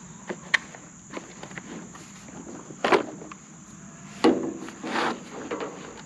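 Knocks and clatter as a plastic case and parts are handled and set down on an old tractor's sheet-metal hood, loudest about three seconds in and again around four and a half to five seconds, over a steady high insect buzz.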